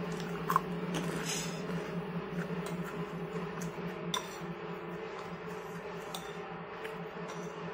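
Eating sounds over a steady low hum: a cracker crunching near the start, then a metal spoon clinking and scraping in a glass bowl, with a sharp clink just after four seconds.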